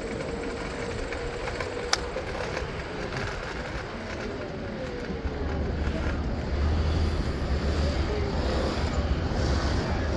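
Steady city street traffic noise heard while riding, with a single sharp click about two seconds in. A low rumble sets in about halfway through, and everything gets louder.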